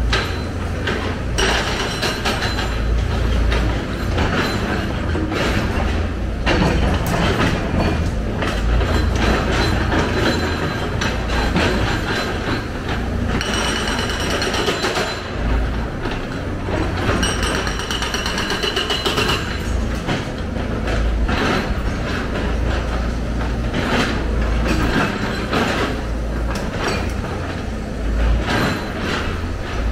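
Hyundai 290 crawler excavator's diesel engine running steadily under load with its hydraulics working, and repeated clatter of broken brick and concrete rubble as the bucket digs and dumps it into a dump truck.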